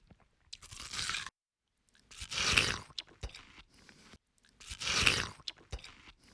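An ape chewing and crunching food: three louder crunching bursts about two and a half seconds apart, with small clicks of chewing between them.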